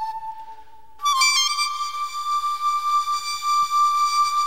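Instrumental music from a live stage recording. One long held high note fades away, and about a second in a new, slightly higher note enters and is held steady.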